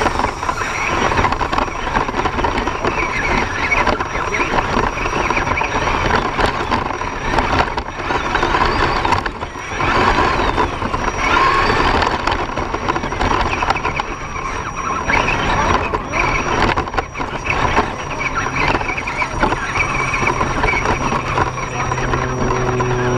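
Axial SCX10 1/10-scale RC rock crawler driving over a rocky dirt trail, heard from a camera on its body: its electric motor and gear train running with a steady high whine, over the rattle and crunch of the drivetrain and tyres on gravel and rock.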